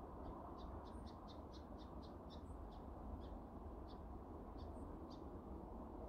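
A small songbird repeating a short, high chip note, about four a second at first and then slowing to about one a second, over a faint steady breeze.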